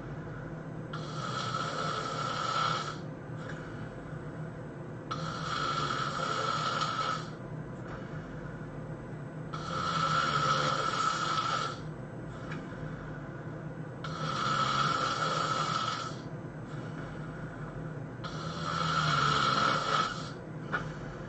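A sleeping person snoring in a steady rhythm: five long, loud snores of about two seconds each, one every four seconds or so, over a steady low hum.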